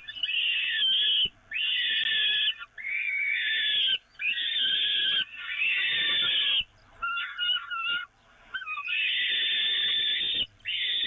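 Peregrine falcon chicks begging for food with harsh, drawn-out screams, each about a second long, repeated one after another with short breaks.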